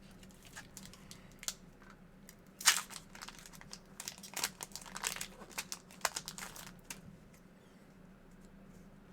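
Foil Pokémon booster pack wrapper crinkling as it is handled and torn open: a scatter of crackles, the loudest about two and a half seconds in, thinning out after about seven seconds.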